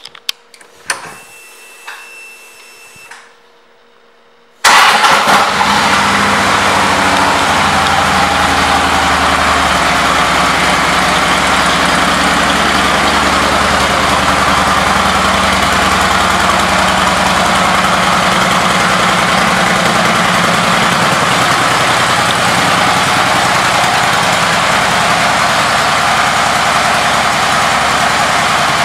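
A 2013 Harley-Davidson Road Glide Custom's air-cooled V-twin being started: a few faint clicks and a brief whine, then the engine catches suddenly about five seconds in and runs at a steady idle.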